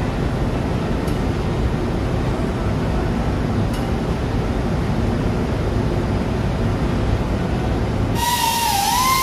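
Steady machinery rumble of a ship's engine room, with a couple of faint tool clicks. About eight seconds in, background music with wavering, bending tones cuts in abruptly.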